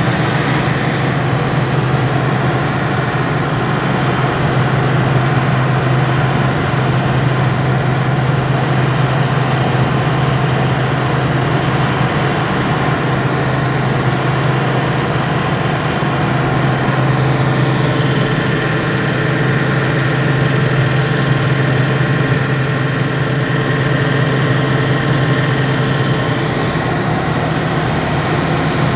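Steady engine hum and road noise from a vehicle cruising at an even speed, heard from on board.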